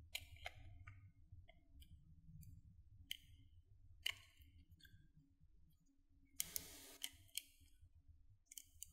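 Knife blade cutting slivers off a bar of translucent soap: faint, scattered crisp clicks and scrapes, with a longer scraping cut about six and a half seconds in.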